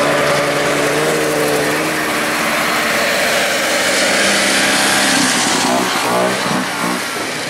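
Vintage snowmobile two-stroke engines running close by, a steady engine note that turns to revving up and down about two thirds of the way through.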